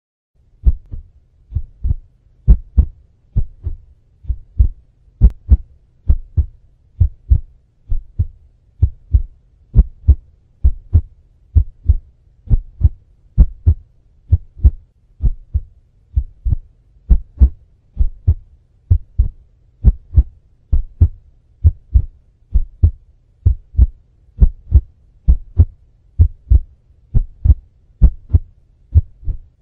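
Heartbeat sound: steady paired low thumps (lub-dub), about one beat a second, over a faint low hum.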